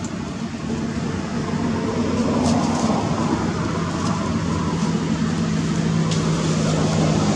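A motor engine running steadily, a low hum that gets a little louder about two seconds in.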